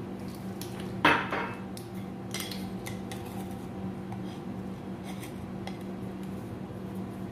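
Kitchen utensil clatter: a glass measuring cup knocks against a stainless steel mixing bowl about a second in, then light clicks of a metal spoon scooping baking powder from its tin.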